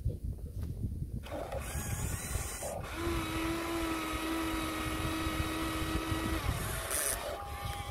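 Electric motors of a Huina radio-controlled excavator whining as the boom and bucket move. A steady whine comes in about three seconds in and stops a little after six seconds, over a low rumble.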